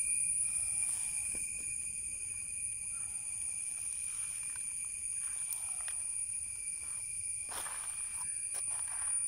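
Insects calling in a steady, high-pitched drone, with a few footsteps on gravelly ground near the end.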